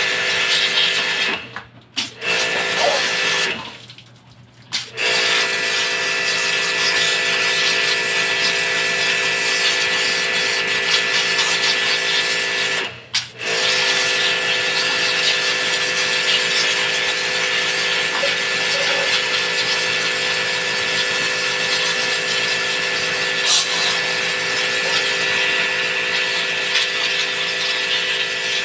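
Pressure washer running steadily, its motor whine under the hiss of a high-pressure water jet spraying the cage floor. It cuts out briefly twice in the first five seconds and once about thirteen seconds in, as the trigger is released, then restarts.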